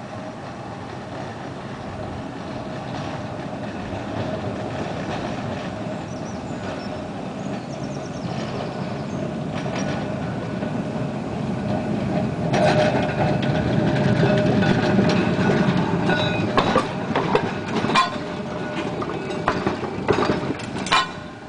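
Blackpool 619 heritage electric tram approaching and passing close by: a rumble of steel wheels on the rails that grows louder, with a steady hum. From about halfway in, sharp clacks as the wheels cross rail joints.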